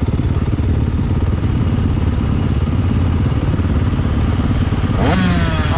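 Yamaha YZ250F's single-cylinder four-stroke motocross engine idling steadily, with a fast, even firing pulse. A voice cuts in over it near the end.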